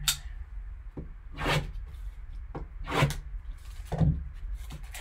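Plastic shrink wrap on a sealed box crackling as it is slit with a knife and pulled open, in four short bursts about a second apart.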